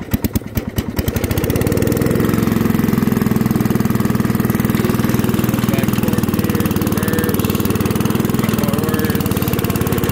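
Single-cylinder 8 hp Kohler engine of a Wheel Horse 875 riding mower catching and speeding up over the first couple of seconds, then running steadily.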